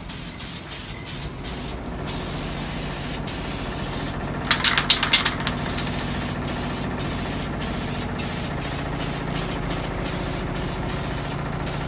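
Aerosol spray paint can hissing as it is sprayed onto a plastic scooter body panel, the hiss breaking off briefly again and again between presses and passes. A steady low hum runs underneath, and a brief cluster of louder sharp sounds comes about four and a half seconds in.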